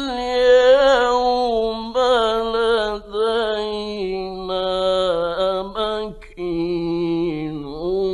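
A male Quran reciter chanting a verse in the melodic Egyptian mujawwad style. He draws out the syllables into long, ornamented held notes and takes short breaths about three and six seconds in. It has the dull, narrow sound of an old radio recording.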